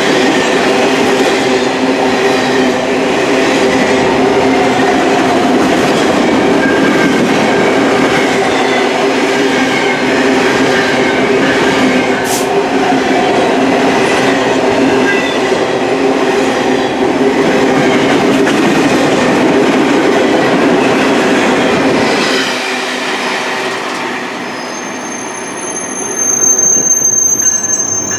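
Freight train cars rolling past on steel wheels, with steady squealing from the wheels and rail clatter. The noise eases about three-quarters of the way through, and a high-pitched wheel squeal comes in near the end.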